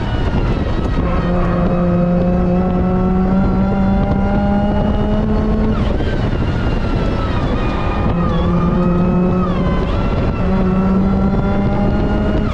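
A car engine under hard acceleration, its revs climbing steadily through each gear. The pitch drops sharply at upshifts about six and ten seconds in, then climbs again.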